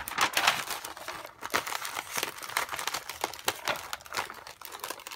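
Crinkling and rustling of a rolled diamond painting canvas and its printed protective film as hands handle and flatten it, in irregular crackly bursts.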